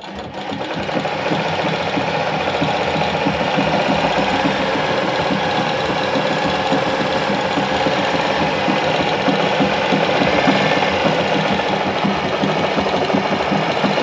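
Alfa Alfamatic 103-3 sewing machine running steadily at speed as it sews out a decorative pattern stitch, with a fast, even stitching rhythm. It gets going in the first second, then holds steady.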